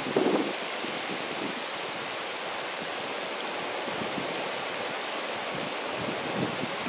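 Mountain creek rushing over rocks, a steady hiss of flowing water, with wind buffeting the microphone in uneven gusts, the strongest just at the start.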